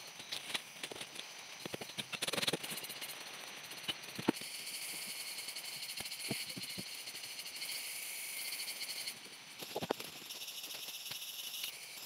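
Steady high-pitched insect chorus in tropical forest, swelling louder for a few seconds mid-way. Over it come scattered knocks, clicks and rustles from split wooden planks and logs being handled and set down.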